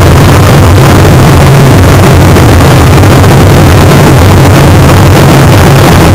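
A diamond-shaped firework set piece burning: a loud, steady roar of fountain fireworks with faint crackle, so loud that it overloads the microphone.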